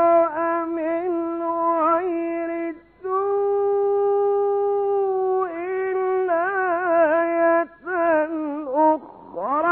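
An Egyptian Quran reciter's male voice in melodic recitation (tajweed), drawing out long ornamented notes. One note is held steady for about two seconds in the middle, with short breaks about three seconds in and near the end.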